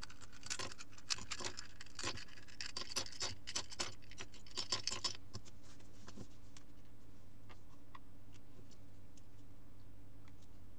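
Plastic pieces of a 3x3 speedcube clicking and scraping as the cube is taken apart by hand for lubing with silicone oil. The sound is busy for about the first five seconds, then thins to a few scattered clicks.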